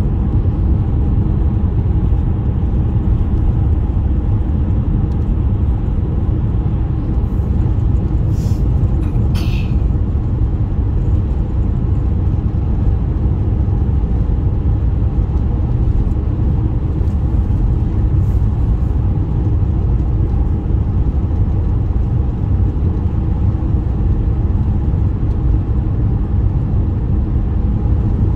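Road vehicle running steadily: a continuous low rumble of engine and tyre noise, with a couple of brief faint hisses about eight to ten seconds in.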